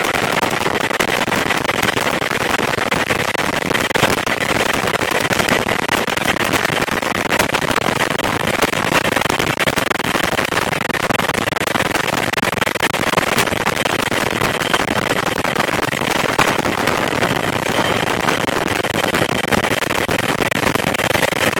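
Helicopter in flight heard from inside the open-sided cabin: a loud, steady roar of rotor, engine and rushing air, with rapid crackling pops from wind buffeting the microphone and a faint high steady whine.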